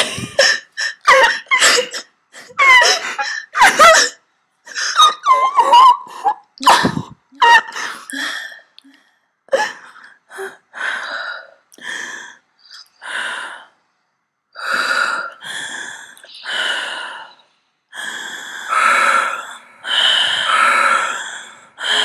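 A person making a string of short wordless mouth and voice sounds: gasps, breaths and squeaky noises that slide up and down in pitch, turning to longer breathy huffs in the second half.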